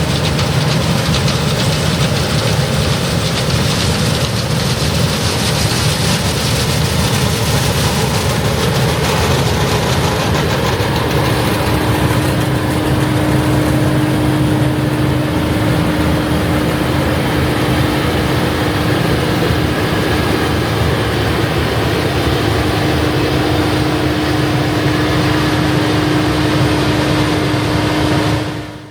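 Heavy farm machinery running steadily at work in the field, a dense loud engine noise, with a steady whine joining about ten seconds in; it fades out at the very end.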